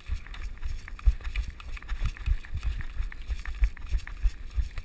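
Running footsteps: a player running hard, each stride a dull thud on the camera's microphone, several a second and uneven, with light clicks and rattles over them.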